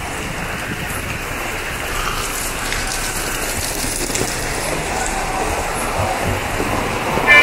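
Heavy rain falling steadily: a dense, even wash of rain pouring onto a covered walkway and splashing on wet paving. A brief high-pitched squeak right at the end.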